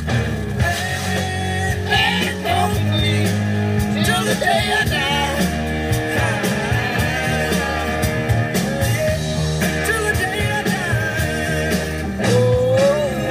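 Rock song playing, with a singing voice over the band.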